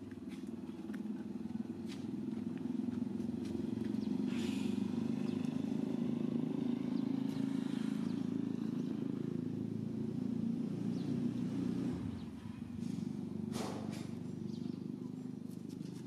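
A motor vehicle's engine running steadily, a low hum that eases off briefly about twelve seconds in, with a few faint clicks over it.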